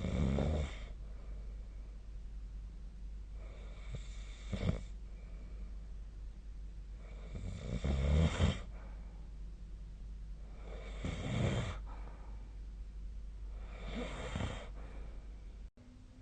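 A sleeping person snoring: five snores spaced about three and a half seconds apart, each lasting under a second, over a steady low hum. The sound cuts out briefly near the end.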